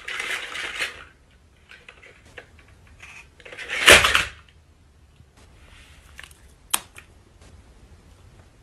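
Toy dinosaur on a wooden floor: faint clicks and scrapes, one loud rough burst just under a second long about four seconds in, when it ends up tipped on its side, and a sharp click near seven seconds.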